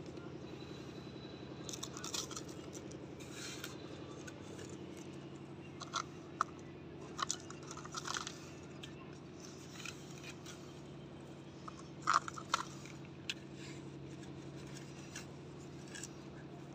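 Plastic toy backhoe scoop digging into sand and tipping it into a plastic toy dump truck's bed: scattered soft crunches and scrapes of sand at irregular moments. A faint steady low hum runs underneath.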